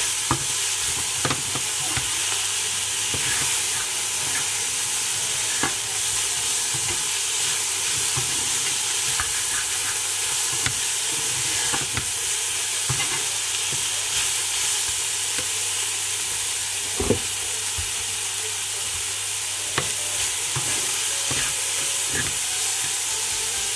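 Chopped tomatoes and vegetables frying in a pan with a steady sizzle while a spatula stirs and scrapes through them, giving scattered light clicks against the pan and one sharper knock about seventeen seconds in.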